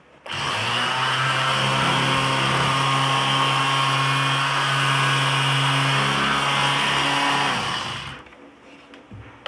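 Black & Decker KA300 135 W 1/3 sheet orbital sander running steadily with strong vibration, then winding down near the end as its own vibration shakes the power plug loose.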